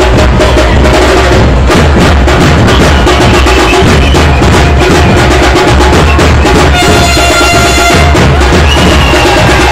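Dhol and tasha drums played in steady, dense drumming. A horn sounds for about a second around seven seconds in.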